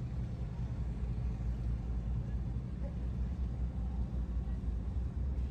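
Steady low rumble of a passenger ferry's engine, an even drone with no change through the stretch.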